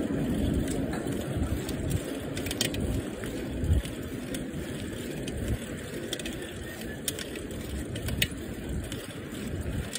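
Bicycle rolling along a paved street: steady low tyre-and-road rumble with mechanical ticking and rattling from the bike, and scattered sharp clicks.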